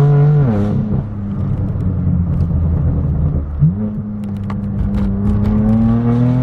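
BMW M4 F82's twin-turbo straight-six, with a straight-piped AWE track exhaust, pulling through the gears. The pitch drops at an upshift about half a second in, then rises steadily from about three and a half seconds in as the car accelerates.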